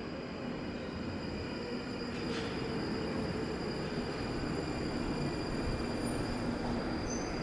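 London Underground Northern line 1995 Tube Stock train pulling into a deep-level tube platform, its rumble growing steadily louder as it comes alongside, with a thin steady high whine over it.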